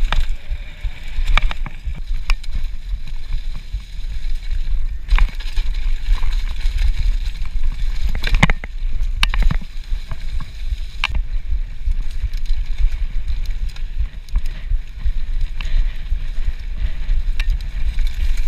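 A mountain bike ridden fast down a rough trail. Wind buffets the action camera's microphone with a steady low rumble, and the bike rattles underneath. Sharp clanks from the bike over bumps come every few seconds.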